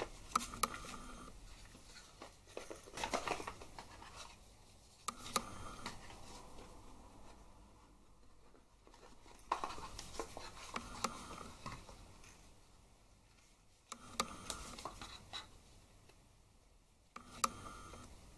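Paper leaflet and small cardboard boxes being handled on a desk: faint rustling, sliding and light taps in several short bouts.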